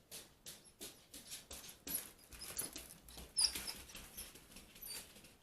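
Light, irregular clicks and scratches of small paws and claws on a hard surface, with a few brief, high squeaks.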